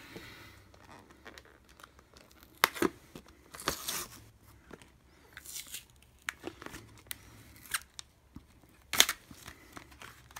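A knife's retail packaging being worked open by hand: intermittent tearing, crinkling and rustling, with scattered sharp clicks and snaps, the loudest one about nine seconds in.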